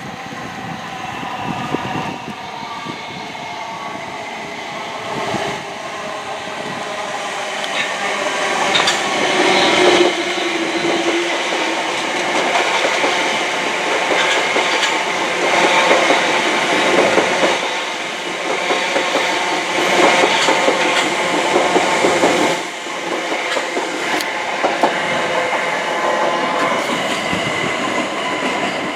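Passenger train passing close by, wheels clattering over the rails and points with a steady mechanical whine, louder from about eight seconds in.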